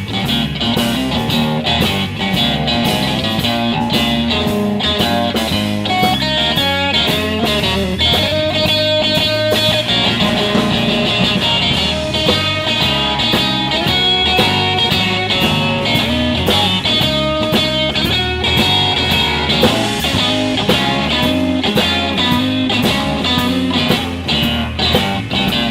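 A live blues-rock band plays an instrumental break: electric guitar over bass and drums, with a steady beat throughout.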